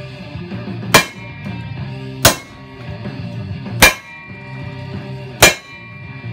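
Four hammer blows on a steel socket used as a drift, each a sharp metallic clang with a short ring, a second and a half or so apart. They are driving a universal joint's bearing cup out of a driveshaft yoke clamped in a bench vise. Guitar music plays underneath.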